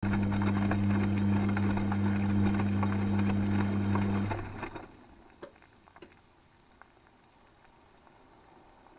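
Beko WTG washing machine tumbling a full load of wet laundry during the heating phase of a 90 °C wash: the drum motor hums steadily under the sloshing and swishing of water and clothes, heard from inside the detergent drawer. About four and a half seconds in, the motor stops and the drum comes to rest, leaving a few faint drips and ticks.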